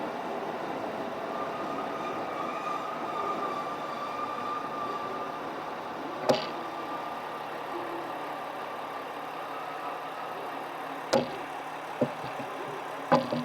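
A stationary train's machinery running with a steady hum and a faint high whine that fades out about 10 seconds in. Sharp clicks or knocks come about 6 seconds in, twice more near 11 and 12 seconds, and a short cluster at the end.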